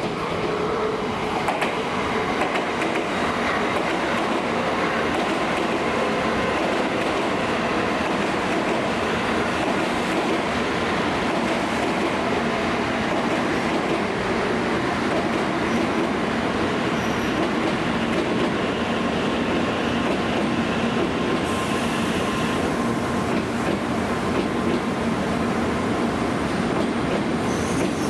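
Tokaido Shinkansen train running on the rails, a steady, loud rolling noise of wheels on track that holds level throughout.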